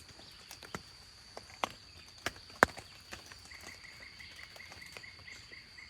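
Outdoor night-time-style nature ambience: a steady high-pitched insect drone, a few sharp clicks or snaps in the first half, and an evenly repeated chirp, about four a second, starting about halfway through.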